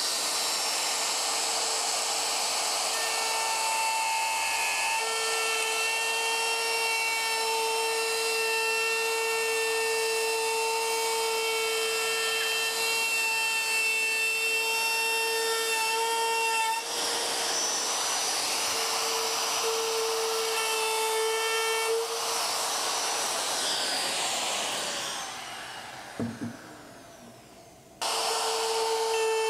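Compact router used as a laminate trimmer, running at full speed with a steady high whine while it trims the overhanging plastic laminate flush with the plywood panel. Near the end the motor winds down, its pitch falling, and then a router is heard running again at full speed.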